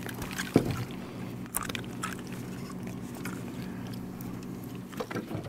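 Knocks and light scrapes as a freshly caught crappie and the fishing tackle are handled on a boat's deck while the fish is unhooked: one sharp knock about half a second in and a few small clicks near the end. A steady low hum runs underneath.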